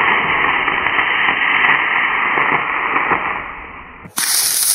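Model rocket's B4-4 black-powder motor firing at liftoff, a loud steady rushing hiss that fades out after about three seconds. Near the end it cuts abruptly to a brief, higher hiss.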